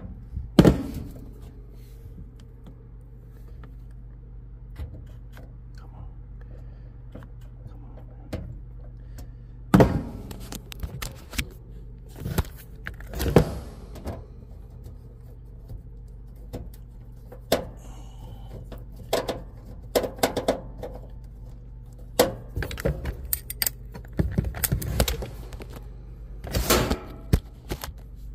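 Scattered clicks, taps and knocks from hands working with small parts and tools, over a steady low hum. A few louder knocks stand out, and the clatter gets busier near the end.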